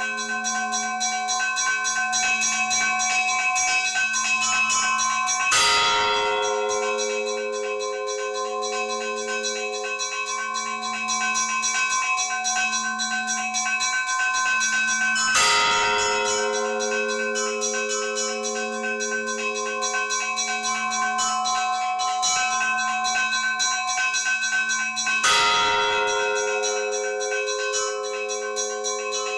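Church bells ringing: a heavy bell is struck three times, about ten seconds apart, each stroke dying away slowly. Between the strokes, smaller bells ring on continuously under a low bell tone that pulses about once a second.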